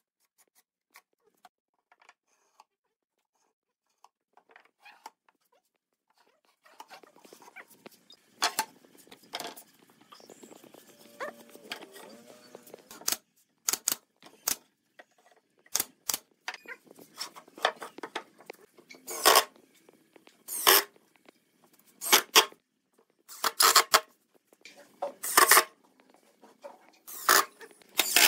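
Cordless drill-driver driving screws into pine boards in short, sharp bursts, one about every second and a half in the second half. Before that come faint clicks of wood pieces being handled.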